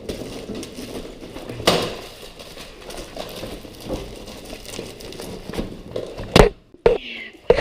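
Rustling and handling noise, with a sharp click about a second and a half in and two loud knocks near the end.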